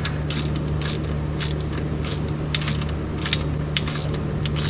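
Ratchet wrench clicking in short, irregular strokes while a rocker arm adjusting nut on a Chevy straight-six is turned down to zero valve lash, over a steady low hum.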